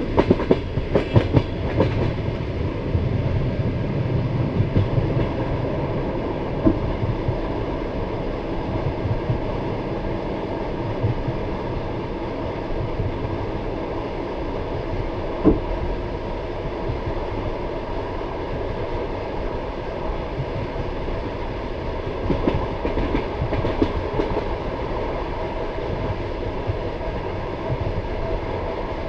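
Passenger railway carriage running along the line, heard from the carriage: a steady deep rumble with wheels clacking over the rail joints, a cluster of clacks in the first couple of seconds and again about 22 seconds in.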